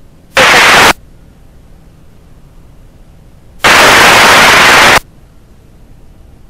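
Two loud bursts of radio static from a railroad radio scanner feed: a short one shortly after the start, then a longer one of over a second about three and a half seconds in, each cutting in and out abruptly over a low hiss.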